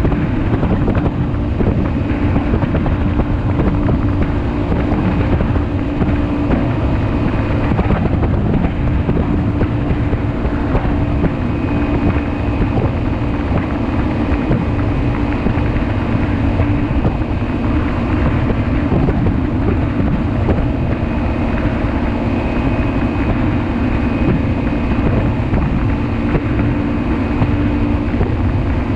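Quicksilver MX ultralight's engine running steadily in level flight, with wind rushing over the microphone.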